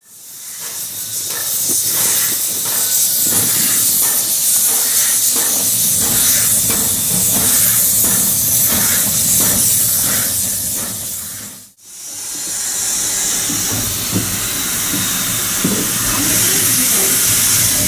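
Steam locomotive GR319 hissing loudly with escaping steam, with a faint regular beat of about two a second under the hiss for the first two-thirds. The sound breaks off for an instant about twelve seconds in, then the hiss carries on.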